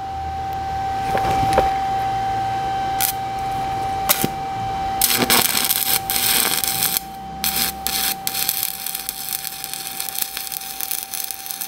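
Stick-welding arc from an E7018 1/8-inch electrode, struck by scratching it on the work. A couple of sharp clicks come before the arc catches about five seconds in. From then on it burns as a loud crackling hiss with frequent spatter pops. A steady whine and low hum run under the first several seconds.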